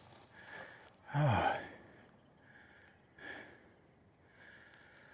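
A hiker breathing between remarks, with a loud voiced exhale about a second in that falls in pitch, then quieter breaths.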